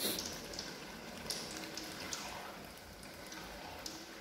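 Spatula stirring chunks of eggplant in a thick chili sauce in a wok, with the sauce bubbling as it simmers and a few short scrapes and squelches as the spatula moves.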